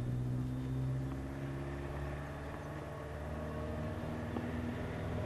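A motor vehicle's engine running, a steady low hum whose pitch drifts slightly. Right at the end comes one sharp crack: the racket striking the ball on a serve.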